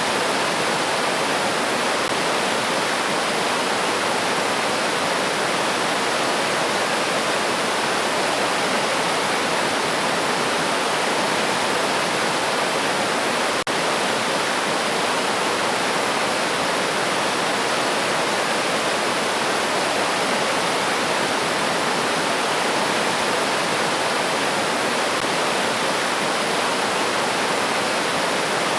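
River water rushing steadily over stones, an even, unbroken noise with a momentary dip about halfway through.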